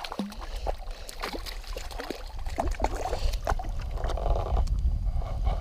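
Water splashing in short irregular bursts, with small clicks, as a hooked fish is drawn in at the surface, and a low wind rumble on the microphone growing from about halfway through.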